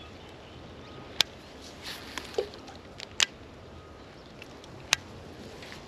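A few sharp, short clicks, spaced a couple of seconds apart, over a steady background hiss.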